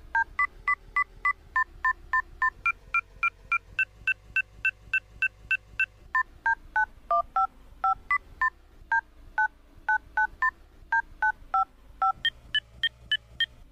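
A tune played in short electronic beeps like telephone keypad tones, each beep two tones at once, about three a second, stepping up and down in pitch, over a faint steady low drone.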